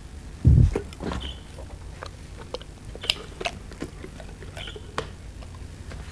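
Great Dane chewing a piece of stroopwafel, with scattered short smacks and clicks of its jaws. A loud low thump about half a second in.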